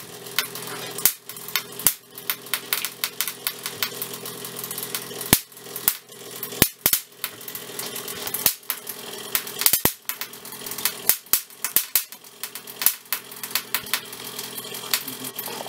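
Irregular, sharp snapping of high-voltage sparking from the electrical supply that drives a glowing Geissler tube, several snaps a second and uneven, over a steady electrical hum.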